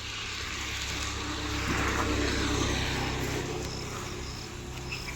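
A motor vehicle's engine running steadily, growing louder to a peak about two to three seconds in and then fading again.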